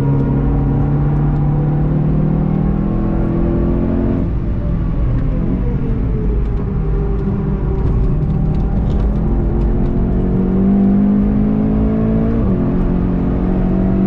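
Onboard engine sound of a VW Golf GTI TCR race car's 2.0-litre turbocharged four-cylinder under hard driving: the note falls as the car slows for a corner, then rises again under acceleration, with brief breaks in the note about four seconds in and about twelve and a half seconds in.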